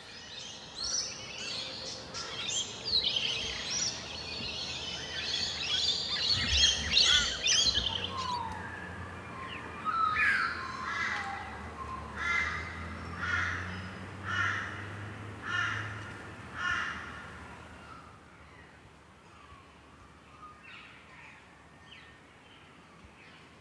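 Wild birds calling: a dense chorus of chirping for several seconds, then a run of about seven loud repeated calls roughly one a second, fading away near the end.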